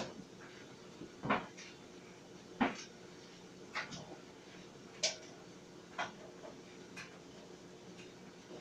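Clothes dryer running with a steady hum, and a knock about every second and a quarter as the tumbling load strikes the drum.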